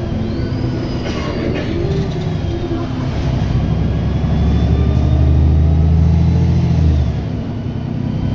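Wright Gemini 2 VDL DB300 double-decker bus heard from inside, its diesel engine pulling away with a deep drone that builds and peaks, then drops off sharply near the end. Thin whining tones rise and fall early on. This is the weird acceleration noise this bus makes.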